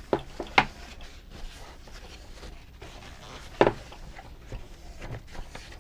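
Plastic parts of an Omnibot 2000 robot's tray being handled and taken apart: light rubbing and rattling, with a few sharp knocks near the start and one louder knock about three and a half seconds in.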